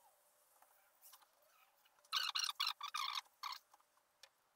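Hand lay-up of epoxy-wet fiberglass cloth on a boat hull: a gloved hand and resin brush working the cloth, heard as a quick run of about five rustling, scraping strokes about two seconds in.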